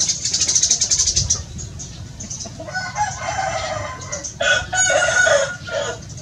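Eurasian tree sparrows chirping rapidly, densest in the first second and a half. From about three seconds in, a rooster crows loudly in long drawn-out calls.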